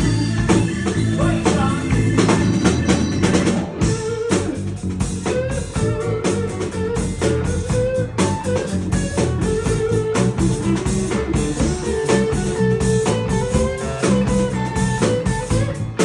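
Blues band playing live: a steady beat on drums under sustained pitched instrument lines.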